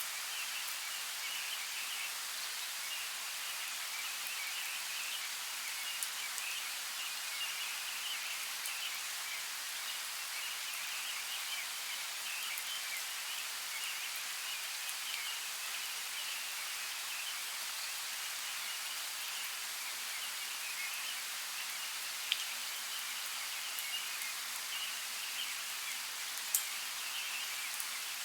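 Light rain falling in a forest, a steady soft hiss with a few sharper drop clicks near the middle and end.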